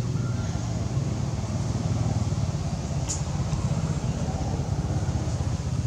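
A steady low rumble, with one brief high-pitched chirp about three seconds in.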